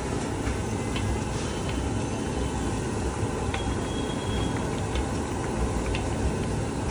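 Papadams frying in hot oil: a steady sizzle with scattered crackles, over a constant low rumble.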